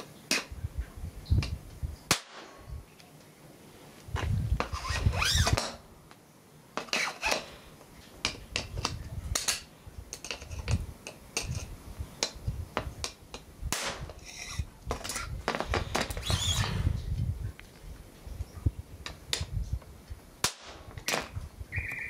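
Handling and movement noise: a string of irregular sharp clicks and knocks with some scraping between them, with louder clusters about four seconds in and again around sixteen seconds.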